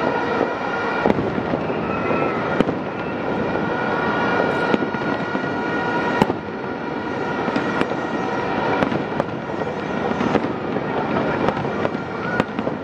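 Fireworks display going off: a continuous crackling with sharp bangs scattered through it, several a few seconds apart.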